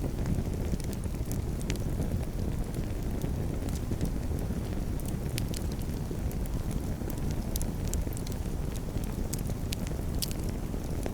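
Campfire burning, with frequent sharp crackles and pops from the wood over a steady low rumble.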